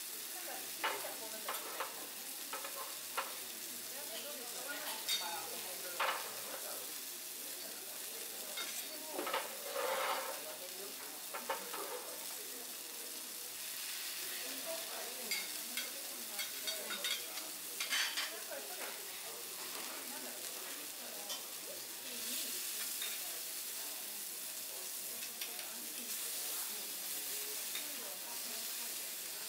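Food sizzling on a teppanyaki iron griddle, with metal spatulas scraping and tapping on the hot plate now and then.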